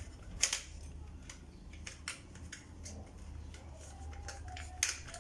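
Plastic housing parts of a hair dryer being handled and pressed together during reassembly, giving a series of sharp clicks and taps, the loudest about half a second in and near the end.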